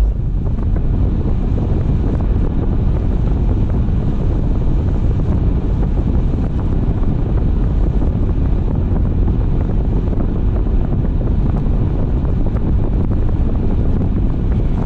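Steady wind and road noise of a moving car, an even, deep rush with no distinct events.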